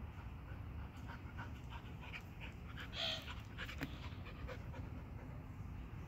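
Small dogs panting in quick, short breaths during play, with one brief, louder high sound about three seconds in.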